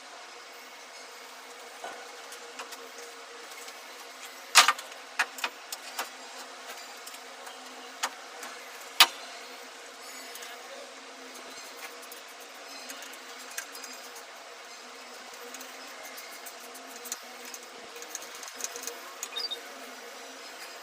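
Scattered sharp clicks and knocks of hand tools being handled during work on an elevator machine, over a steady hiss. The two loudest come about four and a half and nine seconds in, with a run of smaller clicks near the end.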